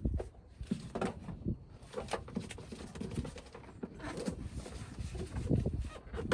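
Foil-backed butyl sound-deadening mat being handled and pressed onto a car's bare floor pan: irregular crinkles, taps and soft thumps.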